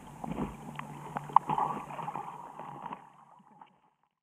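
Muffled water sound from a camera held underwater in a rock pool: small clicks and knocks with gurgling water movement, fading out about three seconds in.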